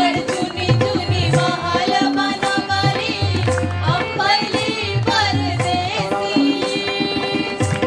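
A chorus of men and women singing a song together, accompanied by tabla and harmonium. The tabla keeps a steady rhythm under the voices and the held harmonium notes.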